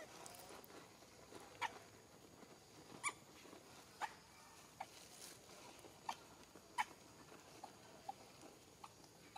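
A series of faint, short squeaky chirps from an animal, about nine of them at irregular intervals of roughly a second.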